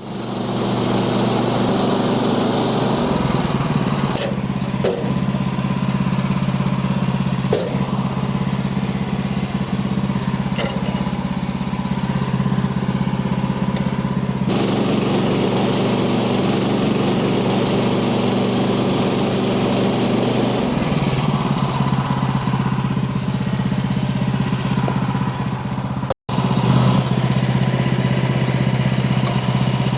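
Small gas engine of a portable bandsaw sawmill running steadily. Its sound shifts a few times, and it breaks off for an instant near the end.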